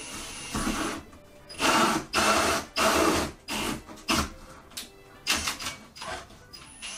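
Milwaukee Fuel cordless drill with a 32 mm hole saw cutting through a Pokémon card and into the cardboard box beneath. The drill is run in a series of short bursts, the longest and loudest in the first half.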